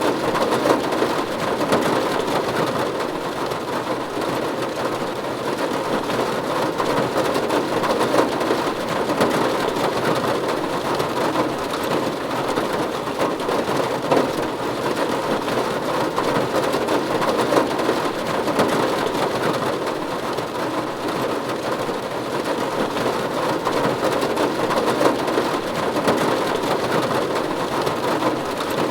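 Steady rain falling on a roof, a dense, even patter of drops.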